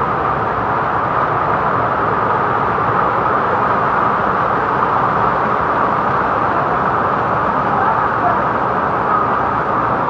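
Waterfall pouring: a loud, steady rush of falling water.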